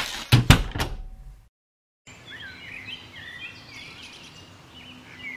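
A door swinging shut, with a loud knock about half a second in. After a short silence, birds chirp steadily over a quiet outdoor background.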